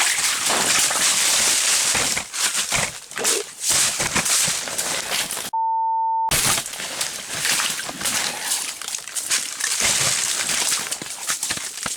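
Steady hissing noise with irregular scuffs and rustles. About five and a half seconds in, all sound is cut out for just under a second and replaced by a single steady beep tone: an edited-in censor bleep.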